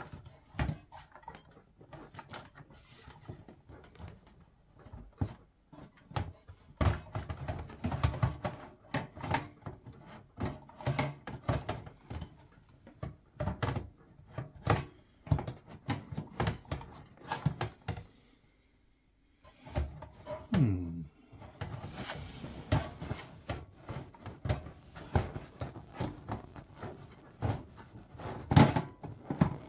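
Irregular clicks, knocks and rattles of plastic cable connectors and the sheet-metal PC case as a Pentium 4-era ATX power supply is worked loose and pulled out of the tower, with a short pause in the handling about two-thirds of the way through.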